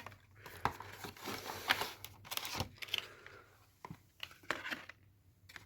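Packaging being handled and opened: irregular rustling and crinkling with small clicks and knocks.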